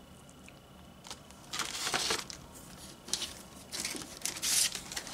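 Plastic bagging and cardboard rustling as a hand moves plastic-wrapped CGC graded comic slabs about in a cardboard shipping box, in several short bursts, the longest about a second and a half in.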